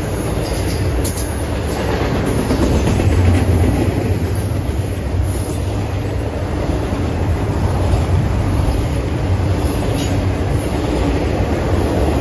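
Double-stack intermodal well cars rolling past close by: a loud, steady rumble of steel wheels on rail, with an occasional sharp click.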